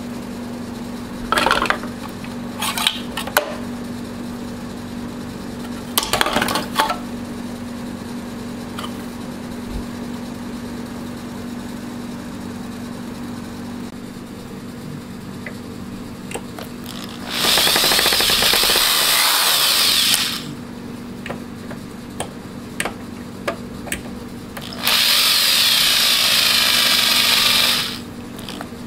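Cordless drill/driver running in two spells of about three seconds each, driving screws out of a printer's plastic housing. A few sharp knocks come in the first seven seconds, and a steady low hum runs underneath.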